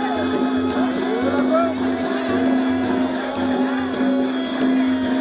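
Live folk-theatre accompaniment: a steady held drone with small cymbals or jingles struck in a quick, even rhythm of about five strokes a second and a drum beating underneath, as entrance music for a character coming on stage.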